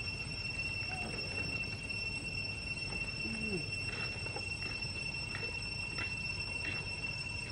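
Steady high-pitched insect drone holding two even tones, over a low outdoor rumble, with a few faint short calls and ticks in the second half.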